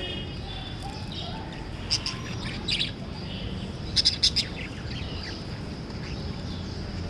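Small pet parrots chirping: a few short, sharp high chirps about two and three seconds in, then a louder quick run of chirps around four seconds in, over steady low background noise.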